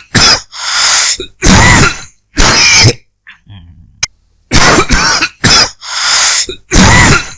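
A person coughing a dry, hacking cough in two fits of about four coughs each, with a pause of a second or so between the fits.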